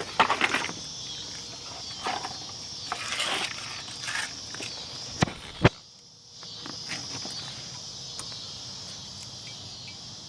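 Sharp clicks and knocks of brake pads and metal hardware being handled at a car's disc brake, over a steady chirping of crickets. The sounds briefly drop out about six seconds in.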